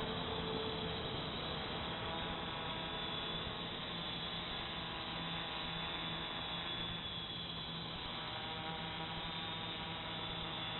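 Small multirotor drone's electric motors and propellers humming steadily as it hovers in GPS loiter mode, holding position.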